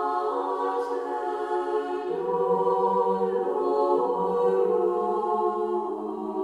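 Background music: a choir singing slow, long-held notes that change pitch every second or so.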